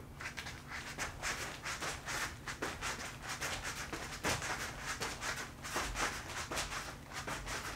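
Beaded moccasins scuffing and shuffling on a foam floor mat in quick dance footwork, the heels twisting out and in while stepping backwards. It comes as a run of short scrapes, several a second.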